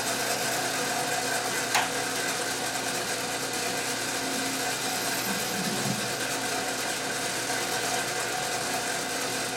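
Metal lathe running steadily, its motor and gear train giving an even mechanical hum with a constant high tone, and a short sharp click about two seconds in.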